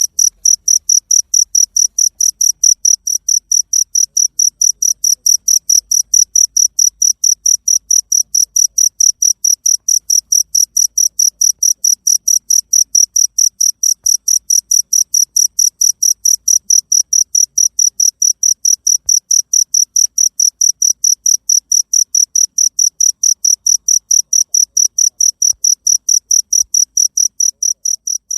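A cricket chirping in a high, even pulse, about three chirps a second. It fades out near the end.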